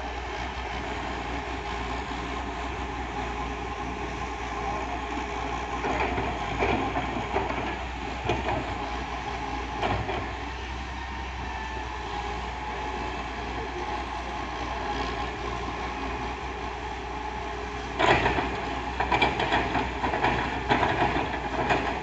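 Wheeled excavator's diesel engine running steadily, with louder clattering and knocking near the end as it works the earth.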